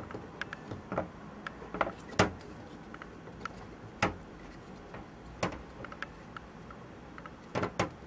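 Irregular small clicks and taps of needle-nose pliers working a rubber grommet through a mounting hole in the plastic frame of a Cougar Vortex PC fan. The loudest clicks come about two and four seconds in, with a short cluster near the end.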